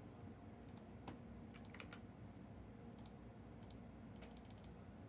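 Faint scattered clicks of computer keyboard keys and a mouse, with a quick run of several clicks about four seconds in, over quiet room tone.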